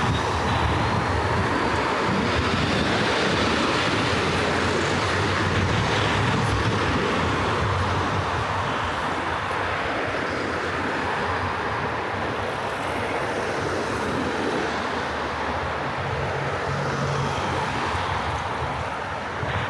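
Steady, fairly loud rumble of motor traffic passing close by on a busy city street, with engines running low and a faint rising whine in the first few seconds.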